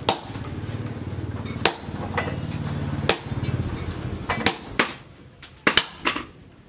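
Hammer blows striking a hand-held tool set on red-hot leaf-spring steel for a cleaver, giving about eight sharp metallic strikes. The first three come slowly, then the blows fall in a quicker run after about four and a half seconds. A steady low hum sounds under the first half and fades away a little past the middle.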